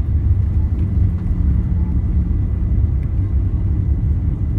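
Steady low rumble inside the cabin of an Airbus A340-300 airliner rolling out along the runway after landing: wheels on the runway and the engines running, with a faint steady high tone above it.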